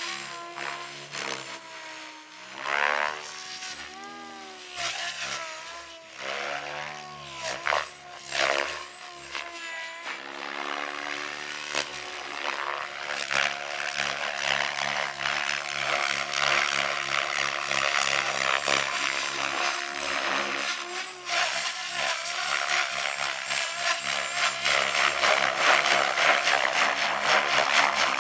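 SAB RAW 700 electric RC helicopter, with a brushless motor, flying 3D aerobatics. For the first half the motor and rotor whine swings up and down in pitch with each manoeuvre. After that the rotor noise thickens into a fast, rhythmic chop that grows louder toward the end as the helicopter sweeps low and close.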